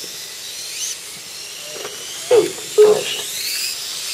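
Electric motors of 1/8-scale RC motorcycles whining as the bikes race, the high pitch rising and falling as they accelerate and slow. Two short, louder sounds come a little past halfway.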